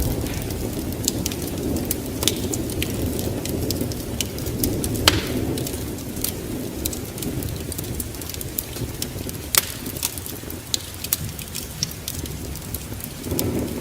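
Wood fire in a fireplace crackling, with sharp pops scattered irregularly through it, over a steady low rumble.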